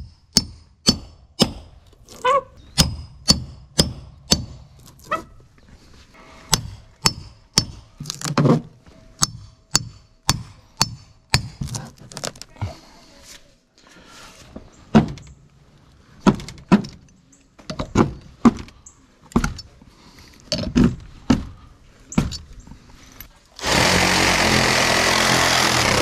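A hammer strikes a steel cat's paw nail puller to dig out old nails from a termite-rotted wooden rim joist. The sharp ringing blows come in runs of about two a second, with short pauses. Near the end a cordless reciprocating saw starts up and cuts into the rotten wood.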